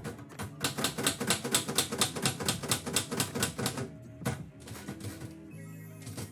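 Typewriter keys striking in a fast run of about seven keystrokes a second for roughly three seconds, then a few single strikes. Lo-fi background music plays underneath.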